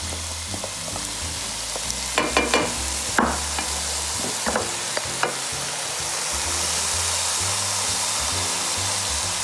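Hot oil sizzling in a stainless steel sauté pan as diced bell peppers, onions and garlic are scraped in from a ceramic bowl with a wooden spoon. There are a few sharp clicks of the spoon on the bowl and pan in the first half, and the sizzle grows a little stronger after that.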